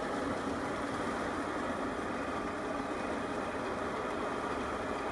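Ridable scale train running steadily along the track, moving away: an even mechanical rumble and hiss with no distinct beat.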